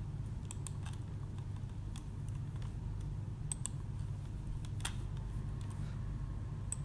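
A few scattered sharp clicks from working a computer, over a steady low hum of room and computer noise.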